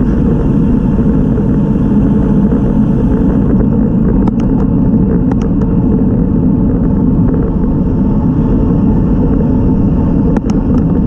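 Wind rushing over the microphone of a bicycle-mounted camera at road-race speed, a steady loud low rumble. A few faint sharp ticks come through about four to five seconds in and again near the end.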